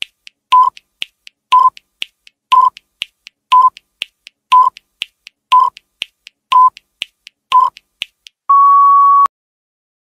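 Countdown timer sound effect: eight short beeps one second apart with fainter ticks between them, ending near the end with one longer, steady beep as the count reaches zero.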